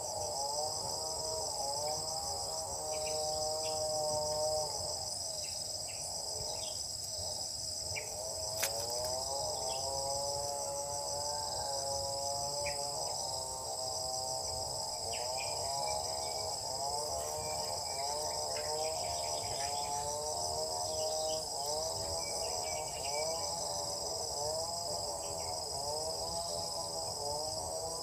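A steady, high-pitched insect chorus, a continuous finely pulsing buzz, with a lower wavering hum that swells and bends about once a second underneath it and a few faint short chirps.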